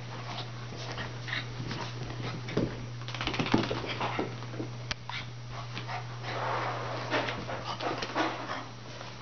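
Shih Tzu–Chihuahua puppy making small whimpers while it rolls and scrambles on carpet after its bath, with many short scratchy scuffles from its body and claws. A steady low hum runs underneath.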